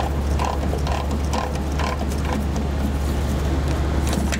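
Four-jaw chuck being tightened by hand around a punch, giving a run of light metallic clicks about two a second over a steady low hum.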